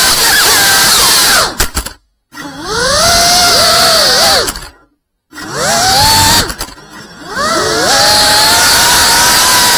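A 5-inch FPV quadcopter's brushless motors and propellers whining, the pitch rising and falling with the throttle. The sound drops out completely twice for a moment, around two and five seconds in.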